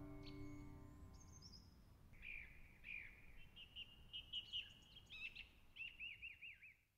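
Faint birdsong: a series of chirps and short whistled notes, ending in a quick run of downslurred notes. In the first second or so the drone of tanpuras built from recycled table-tops fades out beneath it.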